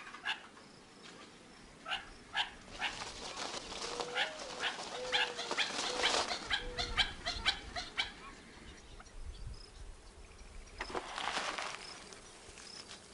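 Gambel's quail giving a quick run of short, sharp call notes, then a brief flurry of flapping wings about eleven seconds in.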